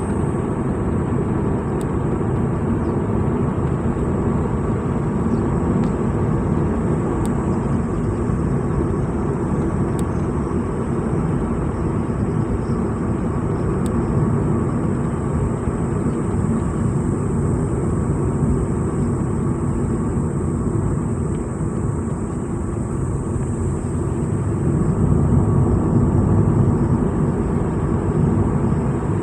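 Steady engine and road noise of a vehicle driving along a road, a deep continuous rumble that grows a little louder for a few seconds near the end.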